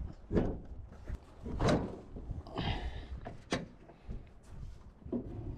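A few separate knocks and clunks from opening up the car to check its engine oil, with a short scraping rasp about halfway through.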